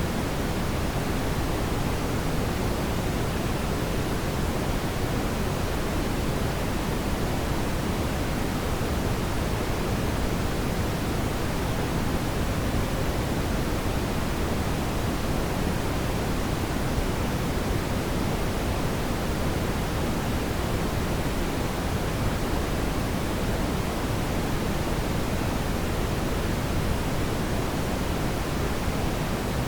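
Steady brown noise: a constant, deep hiss with most of its energy in the low end, unchanging throughout.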